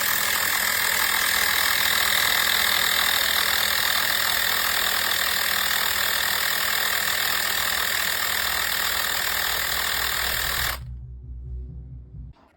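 CYCPLUS 150 PSI portable battery-powered air compressor running steadily, then cutting off abruptly about eleven seconds in, leaving a low rumble.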